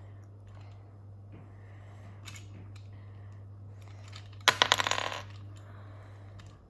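Small hard plastic toy pieces handled and clicking, with a short loud clatter of pieces rattling together about four and a half seconds in, over a steady low hum.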